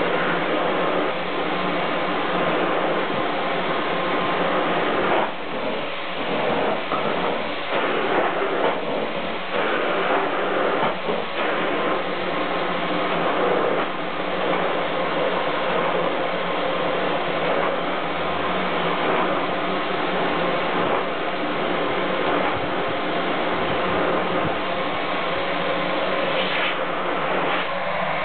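Siemens canister vacuum cleaner running steadily, with the noise dipping briefly a few times.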